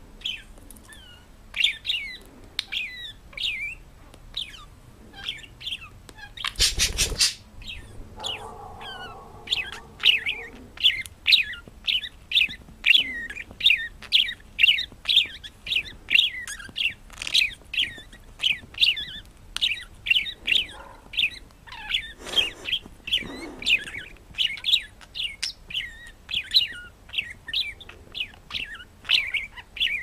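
Budgerigar chirping and chattering in quick short calls, about two a second, busier in the second half. A brief loud bump about seven seconds in.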